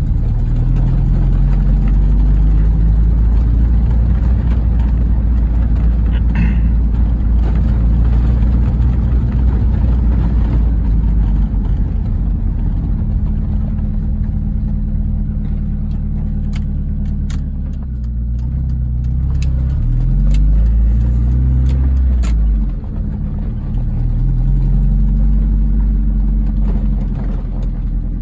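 1998 MG F VVC's 1.8-litre K-series four-cylinder engine running, its revs rising and falling several times, with scattered sharp ticks in the middle stretch. The ticking and squealing come from an exhaust manifold leak at loose manifold bolts.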